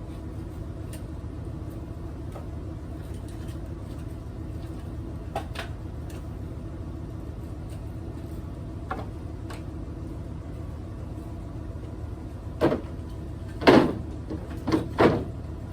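Steady low motor rumble with a few faint clicks, then four loud, sharp knocks in the last three seconds, the second of them the loudest.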